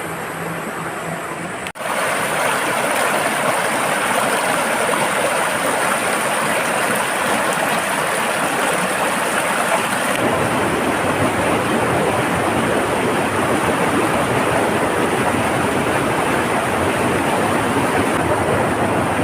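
Rushing water of a fast-flowing stream, a steady noise that cuts out briefly about two seconds in and carries on slightly louder after.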